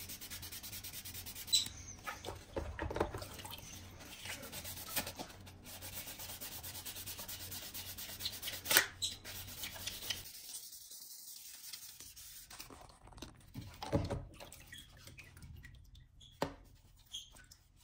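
Sanding sponge rubbing over the plastic housing of an intercom handset, a steady rasping scrub during wet sanding that stops about ten seconds in. After that come a few handling knocks and clicks as the plastic piece is turned over the water.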